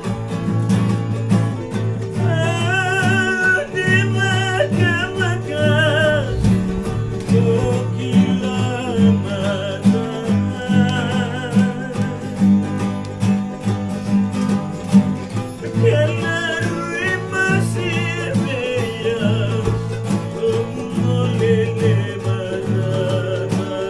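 Several acoustic guitars strummed together in a steady rhythm. Voices sing a wavering, held melody over them in two phrases, one a few seconds in and another after the middle.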